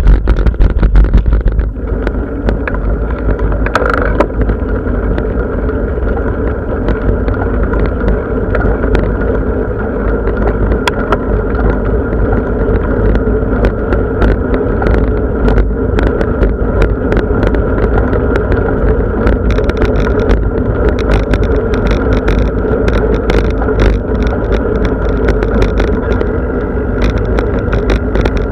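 Riding noise from a moving bicycle: a steady deep wind rumble on the microphone, with tyre and road noise and frequent small rattles and clicks from the bike over the surface.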